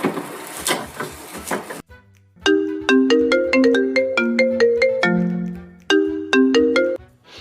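A mobile phone ringtone: a short melody of bright, pinging notes that plays through and starts again about three and a half seconds later. It follows a second or so of hissing noise with a few clicks.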